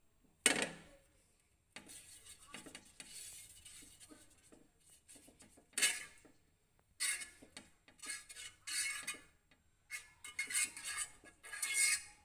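A utensil scraping and brushing melting butter around a hot non-stick tawa, in irregular strokes that grow busier toward the end. There is a sharp knock on the pan about half a second in.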